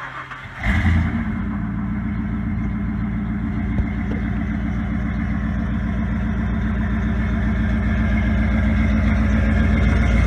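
1995 Ford Bronco's V8 catching about a second in, then running steadily at idle and growing slowly louder.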